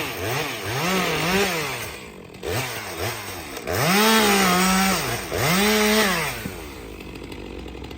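Two-stroke chainsaw revved hard in repeated throttle bursts, its pitch climbing and falling with each one, while cutting a section off a log cant. The longest and loudest bursts come about four to six seconds in, then it drops back toward idle near the end.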